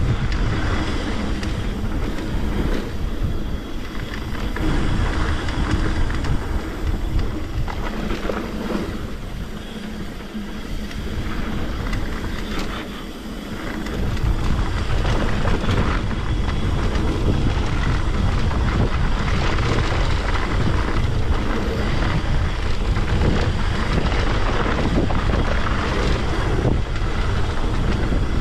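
Mountain bike ride on a wet trail: wind buffeting a chest-mounted camera's microphone over tyres rolling on the dirt, with scattered knocks and rattles from the bike over bumps. The low rumble grows louder about halfway through, as with more speed.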